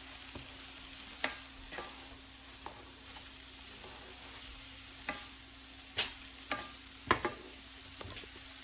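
Food sizzling faintly in a frying pan while a utensil clinks and knocks against the cookware about nine times, the loudest knock about seven seconds in, over a steady low hum.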